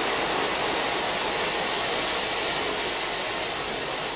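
Ground firework fountains spraying sparks with a steady rushing hiss. The hiss slowly dies down toward the end as the last fountain burns out.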